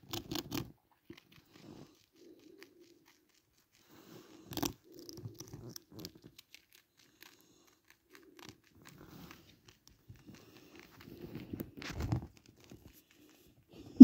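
Pet rat gnawing and crunching a Wotsits Crunchy crisp, in short irregular bursts of crunches with pauses between them. The sharpest crunch comes about four and a half seconds in, and another run comes near the end.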